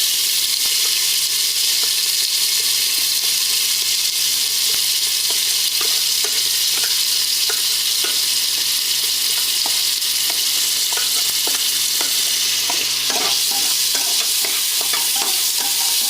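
Finely chopped onion frying in hot oil with cumin and green chilli, a steady sizzle. A spoon stirs and scrapes the pot in quick taps from about four seconds in, most often near the end.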